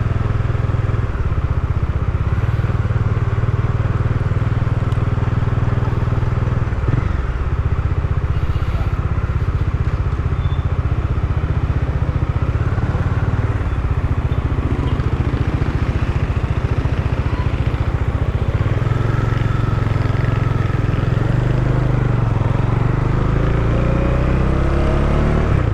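Motorcycle engine of a Bajaj Dominar 400 running steadily, heard through a mic in the rider's helmet cheek pad. The pitch rises near the end.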